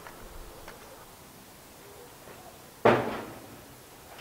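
A single loud bang from a corrugated sheet-metal gate being struck, about three seconds in, with a short rattling decay.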